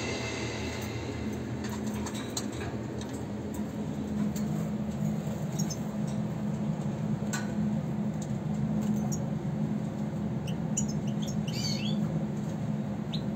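Steady low hum with scattered faint clicks, and about eleven seconds in, a short burst of quick high twittering chirps from a European goldfinch.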